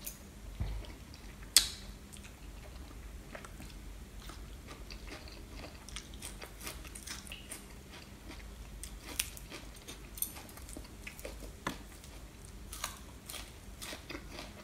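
A person chewing a mouthful of raw salmon marinated in fish sauce, with fresh greens, heard close up. Scattered sharp clicks run through it, the loudest about one and a half seconds in.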